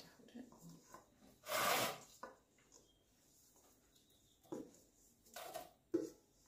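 Wooden spoon scraping thick brownie batter out of a mixing bowl into a baking tin: two short scrapes, the first the louder, with a few light knocks and clicks between them.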